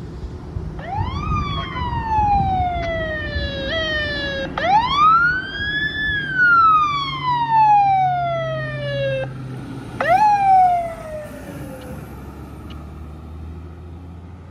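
Emergency vehicle siren swept up quickly and let glide slowly back down, three times, with a short extra push partway through the first; the middle sweep climbs highest and lasts longest.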